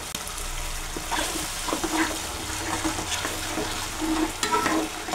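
Tomato paste sizzling as it fries in a hot metal kadai, with a steel spatula stirring through it and scraping the pan in short strokes about every half second.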